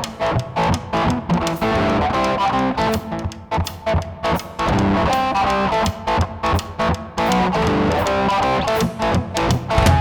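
Music with electric guitar playing over a steady drum beat.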